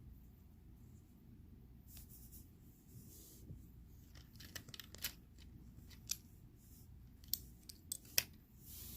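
LEGO plastic pieces being handled, giving a scattering of short sharp clicks and knocks in the second half, against a faint room background.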